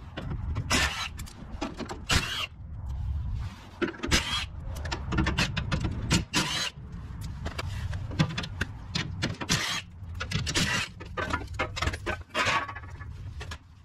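Cordless impact wrench undoing the bolts of a vehicle's underbody bash plate, rattling in short bursts every second or so.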